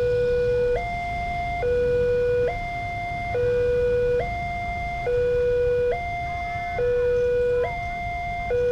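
Indonesian railway level-crossing warning siren sounding its two-tone alarm from the pole loudspeaker. It alternates between a low tone and a slightly higher tone, switching about every second, and the low tone is the louder. The alarm signals that a train is approaching and the crossing is closed.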